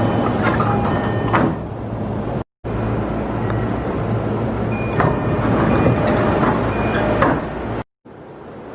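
Train noise: a steady low rumble and hum with scattered clicks, knocks and short high beeps. It cuts off abruptly twice, about two and a half seconds in and near the end.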